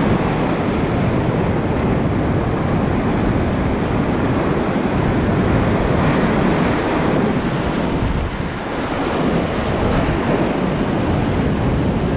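Loud whitewater rapids rushing and churning around a kayak running a big wave train, steady throughout, with water and wind buffeting the wet camera microphone.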